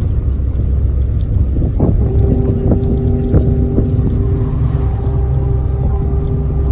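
Road vehicle running at speed, a loud low rumble of engine and road noise with wind buffeting the microphone. A steady pitched hum joins about two seconds in and holds.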